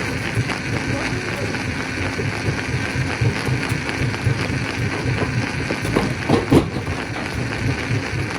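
Stone crusher running: a steady rattling grind with a low pulsing of about three to four beats a second, and a brief louder sound about six seconds in.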